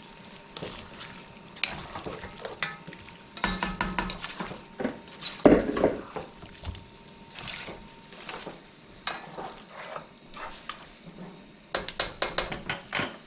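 Seasoned chicken sizzling in a pot while a spoon stirs it, with irregular scrapes and clicks of the utensil against the pot. A louder knock comes about five and a half seconds in, and a quick run of clicks comes near the end.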